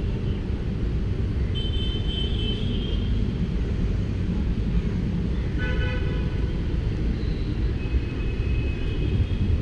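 Steady low street-traffic rumble with brief car-horn toots, the clearest about six seconds in.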